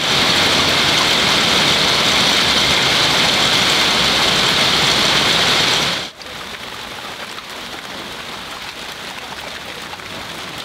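Steady hiss of water, loud and bright for about six seconds, then dropping suddenly to a softer, even hiss.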